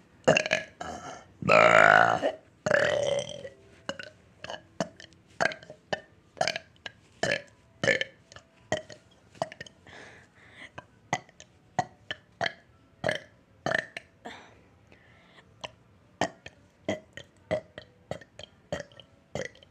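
A person burping over and over: two long, loud burps about two seconds in, then a steady run of short burps at about two a second.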